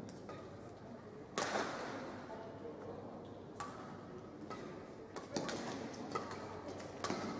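Badminton rally: rackets striking the shuttlecock, about five sharp hits a second or two apart, the loudest about a second and a half in, over the low background noise of an arena.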